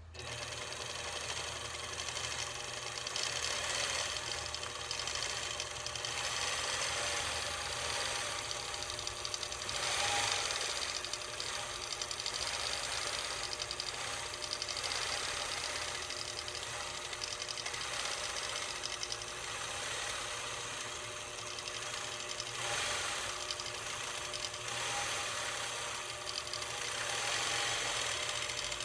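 A1 923 Elite longarm quilting machine stitching a pantograph, its needle running in a rapid, even chatter, getting briefly louder a couple of times.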